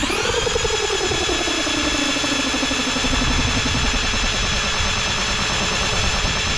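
Traxxas Stampede's brushed electric motor and drivetrain spinning the wheels at full throttle with the truck upside down and the tyres in the air, ballooning outward from the speed. The whine rises sharply at the start, holds high and steady, and begins to wind down right at the end.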